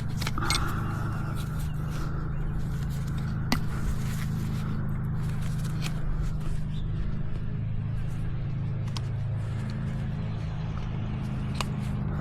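Mini angle grinder running steadily, grinding down the heel of a miniature horse's overgrown hoof, with a few small clicks and knocks along the way.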